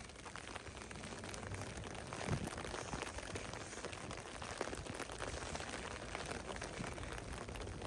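Steady rain, an even hiss dotted with many small ticks of drops landing close by, with a few soft low thumps of footsteps on the wet pavement.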